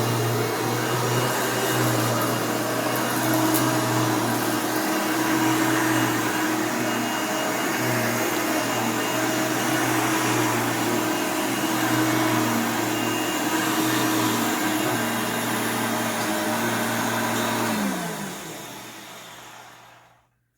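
Hoover Elite 600 upright vacuum cleaner running steadily on a mess test, its brush roll turning on a new replacement belt. About 18 seconds in it is switched off and the motor winds down in pitch to silence.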